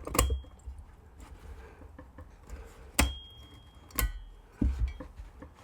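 Metal halves of a neo75 keyboard case with a copper bottom knocking together as the top is pressed onto its ball catches: a few sharp metallic knocks, two of them with a brief ringing. One side fails to click into place.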